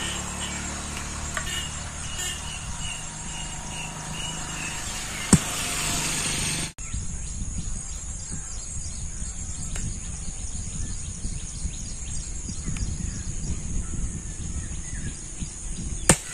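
Outdoor ambience of a steady high insect drone over a low rumble, with scattered bird chirps. Two sharp knocks stand out, one about five seconds in and one near the end.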